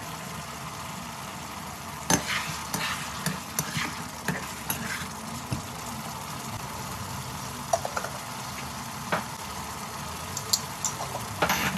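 Beef curry sizzling in a nonstick pan as a spatula stirs it, with a steady frying hiss and irregular sharp scrapes and taps of the spatula against the pan.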